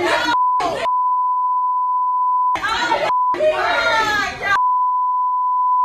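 Censor bleep: a steady beep tone cuts in four times over the raised voices of people in a scuffle, blanking them out each time; the longest bleep lasts well over a second and another closes the stretch.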